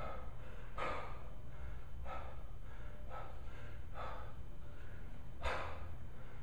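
A man breathing hard with exertion during a kettlebell set: short, forceful breaths about once a second, six in all.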